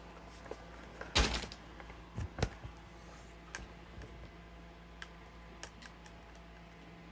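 A loud thump about a second in, two lighter knocks just after, and a few faint clicks later, over a steady low electrical hum.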